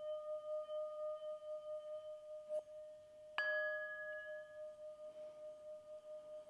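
Small singing bowl ringing steadily with a wavering pulse. A faint click about two and a half seconds in, then a strike about a second later that brings a brighter ring before it settles back to the steady tone.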